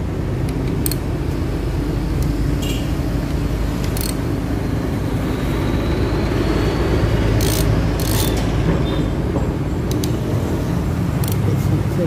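Steady low rumble of motor-vehicle noise. Scattered sharp metallic clicks from a socket tool working the camshaft cap bolts on a bare cylinder head sound over it.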